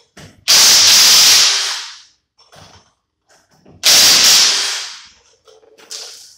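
Impact wrench loosening the lug nuts on a car's front wheel: two bursts of rapid hammering with a hiss, each about a second and a half long, about three seconds apart.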